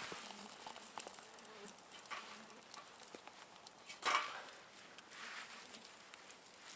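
Small twig fire in a Bushbuddy wood-burning stove, with faint crackles and light clicks of sticks as it is fed, and one short louder rustle about four seconds in.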